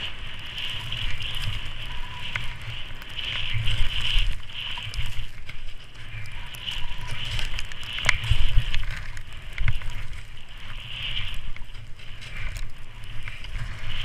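Skis hissing through deep powder snow, swelling and fading every second or two with the turns, with wind noise buffeting the skier's body-worn camera microphone and a few sharp clicks.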